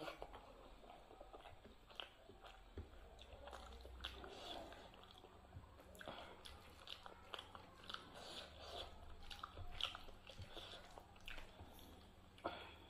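Faint chewing and small wet mouth clicks from eating rice and dal by hand, with soft squelches of fingers mixing the rice into the curry on the plate.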